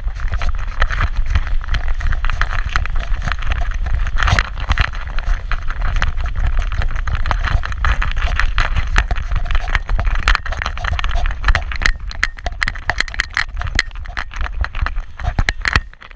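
A small dog trotting on pavement, its harness, metal leash clip and back-mounted action camera rattling and clicking with each stride, over a low rumble of wind on the microphone.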